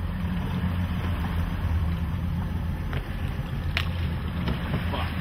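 Boat engines of a Grady-White Tigercat running with a steady low hum under wind and water noise, with a short click about four seconds in.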